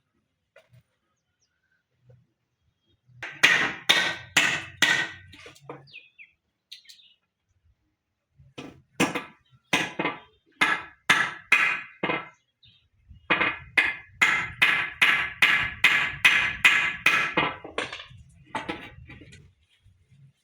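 Hammer driving long concrete nails into 2-by-2 timber: three runs of sharp blows at about two to three a second, starting about three seconds in, with short pauses between the runs.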